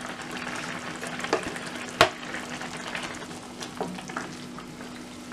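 Thick mutton-roast gravy sizzling and bubbling in a pan on high heat with the lid off, while a plastic spatula moves through it. There are a few knocks of the spatula against the pan, the sharpest about two seconds in.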